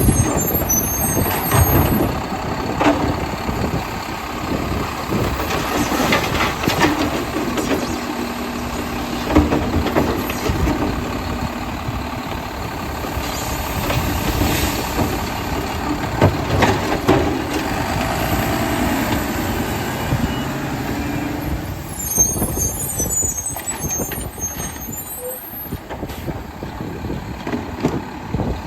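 Mack LEU garbage truck with a Labrie Automizer side loader working close by: its diesel engine runs throughout, with repeated metallic knocks and clatters from the truck's collection work.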